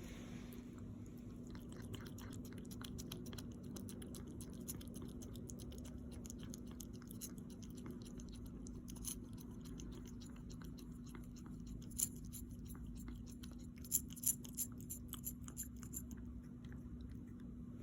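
An animal chewing and crunching food, a run of many small clicks, with a cluster of sharper, louder clicks about two-thirds of the way through. A steady low hum runs underneath.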